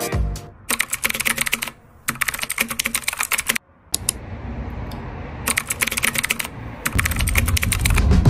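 Computer keyboard typing sound effect: rapid key clicks in about four short bursts with brief pauses between them.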